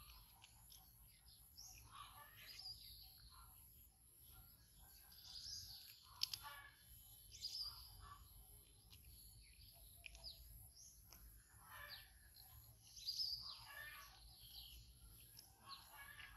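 Faint, high chirping calls every couple of seconds over a steady high whine, with one sharp click about six seconds in.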